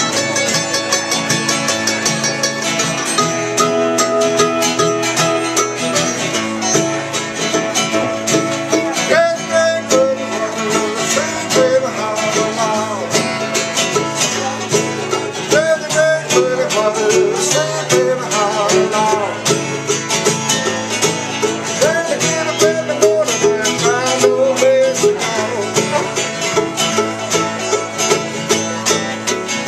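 Bluegrass music with quickly plucked banjo and guitar, with a sliding melody line over it in the middle stretch.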